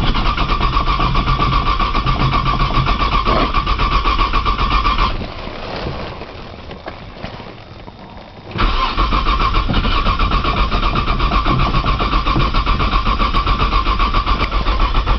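1995 Nissan Maxima's V6 being cranked by its starter on a cold morning. It turns over in a rapid, even rhythm without catching: it cranks for about five seconds, pauses for about three and a half, then cranks again. The owner suspects a bad sensor behind the cold no-start.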